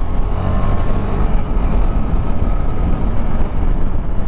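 Wind rushing over the microphone while riding, with the KTM 390 Adventure's single-cylinder engine running steadily underneath at cruising speed.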